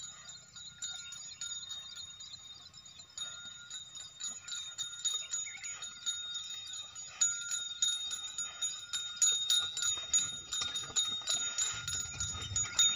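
Bells on a pair of working bullocks jingling steadily as the team walks, pulling a hoe between crop rows, with a clink at each step. The jingling grows louder as the team approaches.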